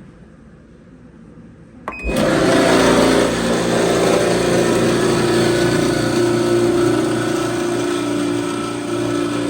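Frigidaire-built electric clothes dryer switched on with a click and a short beep about two seconds in, then running with a loud, steady mechanical whirr and hum, its idler pulley removed.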